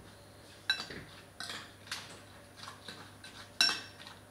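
A metal spoon clinking against a dish several times while mixing a cereal and protein-shake snack, in separate sharp clinks with a brief ring, the loudest one near the end.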